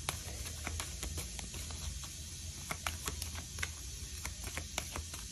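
Irregular light clicks and taps, several a second, over a low steady hum.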